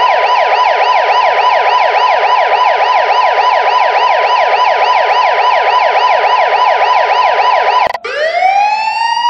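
Electronic police-style siren sounding a fast yelp, about four or five sweeps a second. About eight seconds in it cuts off abruptly and switches to a slow wail that rises near the end.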